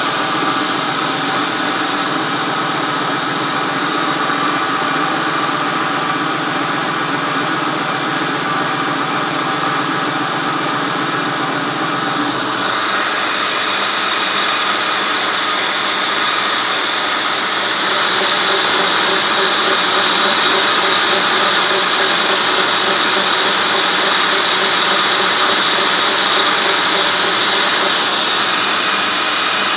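Ford 4.6-litre single-cam V8 running, heard up close at the serpentine drive belt and its accessory pulleys, with steady high-pitched tones over the engine sound. About twelve seconds in, the sound turns brighter and thinner.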